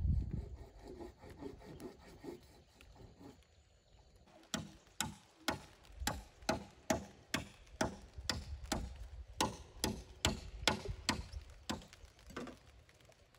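Rhythmic rasping strokes of a hand tool working a bamboo pole, about two or three a second, starting about four seconds in and stopping shortly before the end.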